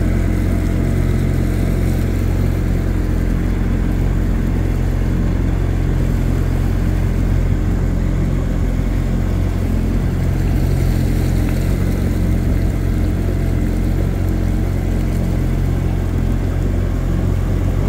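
Boat engine running steadily, a constant low hum with no change in pitch.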